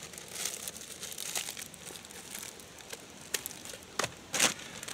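Plastic zip-lock bag crinkling in the hands as it is sealed and handled, with a few sharper crackles of packaging near the end.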